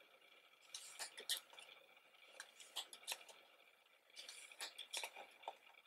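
Paper pages of a softcover lyric booklet being turned by hand one after another: faint rustles and short crisp ticks, scattered every second or so.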